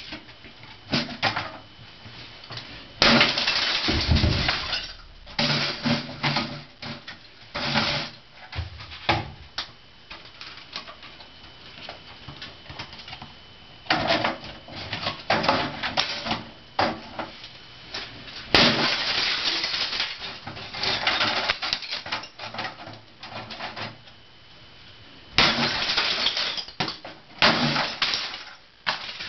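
A hammer smashing plastic discs, cases and tapes: clusters of rapid blows with cracking and crunching of breaking plastic, separated by short pauses.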